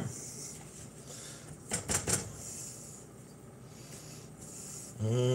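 Soft rustling and a few light clicks from a gloved hand turning fish fillets in olive oil on a paper towel, over a faint steady hiss.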